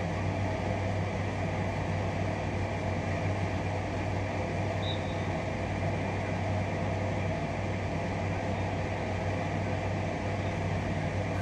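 A steady, unchanging low hum, strongest in its deep note, over an even background hiss.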